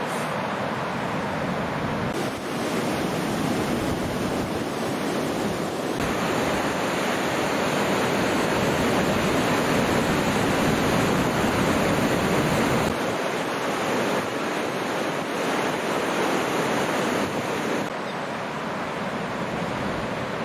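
Ocean surf breaking on a beach: a continuous wash of waves that grows louder toward the middle and eases off near the end.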